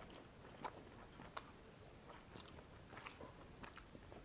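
Faint eating sounds of a person chewing chicken curry and rice: a few soft mouth clicks and smacks scattered over the chewing, the sharpest about halfway through.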